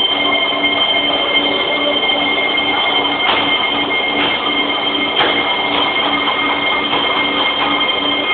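Doosan Puma SY2000 twin-spindle CNC lathe running: a steady high-pitched whine of two held tones over a lower hum that pulses on and off, with a few sharp ticks around the middle.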